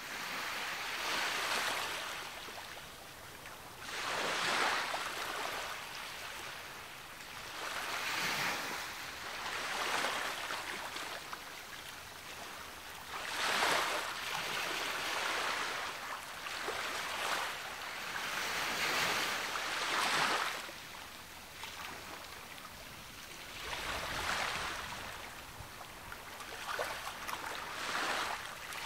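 Sea waves breaking and washing up the beach, each wash swelling and fading, one every four to six seconds.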